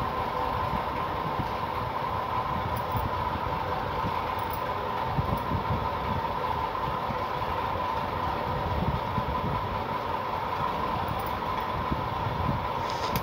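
Steady mechanical drone with an even hum and a low, uneven rumble underneath.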